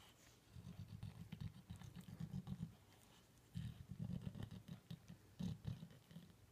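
Dog licking a newborn kitten: quick, wet, repeated licks in two bouts, with a short pause about three seconds in.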